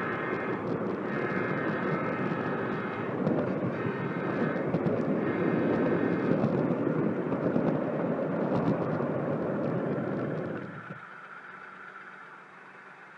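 HO scale model diesel locomotive's sound: a horn blowing long, long, short, long over a steady engine rumble. The rumble drops away suddenly about eleven seconds in.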